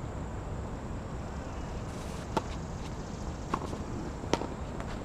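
Tennis balls struck by rackets during a doubles rally: three sharp pings about a second apart, the last the loudest, over a steady outdoor background hiss.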